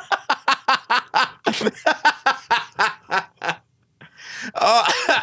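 A person laughing in a rapid run of short bursts for about three and a half seconds, then a breath and a voiced 'oh' near the end.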